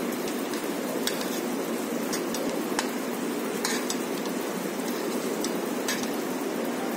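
Banana pieces frying in butter and caramelizing brown sugar in a frying pan, a steady sizzle, with a few sharp clicks of a metal fork and wooden spatula against the pan as the bananas are turned.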